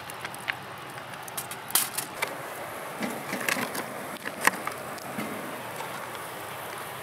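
Charcoal grill crackling, with a steady hiss and scattered sharp pops through it.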